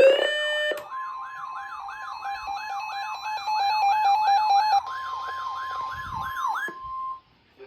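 Electronic emergency-alert tones for a severe thunderstorm warning. A rising sweep levels off into steady tones and stops under a second in. Then a siren-like tone warbles up and down about three times a second over steady, pulsing beeps and cuts off about seven seconds in.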